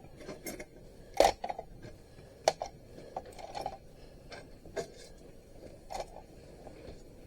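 Small scrap steel parts from a dismantled cordless drill clicking and clinking as they are handled and set on a scale: one sharper knock about a second in, then scattered lighter clicks.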